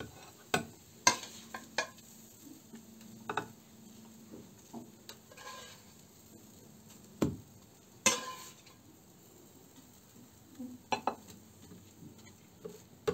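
A spatula knocking and scraping against a frying pan and a ceramic plate as pieces of fried banana-oat pancake are lifted out and laid down: scattered single knocks and short scrapes a second or more apart.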